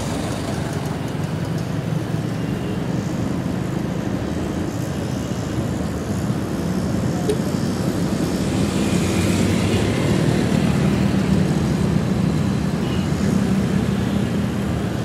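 Onboard sound of a motorcycle riding through city traffic: the bike's engine, wind and road noise blend into one steady noise, growing a little louder partway through, with other traffic around.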